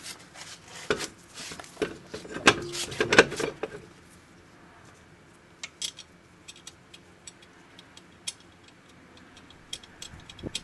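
An alloy wheel is fitted back onto the wheel studs. It gives a cluster of knocks and scrapes for the first few seconds, then lug nuts are spun on by hand with scattered light metallic clicks.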